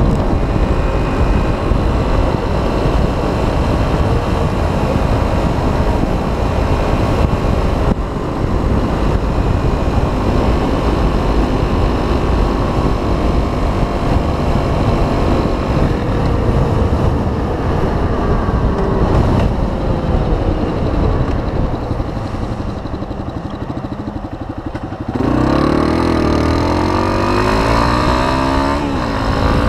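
Yamaha 250 dual-sport motorcycle's single-cylinder engine running under a dense rumble of wind and road noise while riding. It eases off for a few seconds, then a little before the end it revs hard under acceleration, its pitch climbing, with a gear change just before the end.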